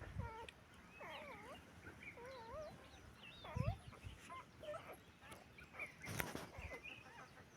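Newborn puppies whimpering and squeaking: a string of short, wavering, high cries, faint, with a couple of brief knocks in between.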